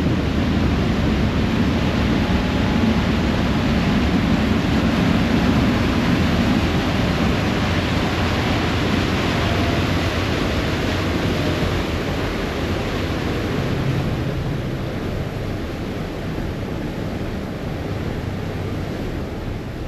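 Ferry under way: a steady low engine rumble mixed with the rush of the churning wake and wind on the microphone, easing a little over the last several seconds.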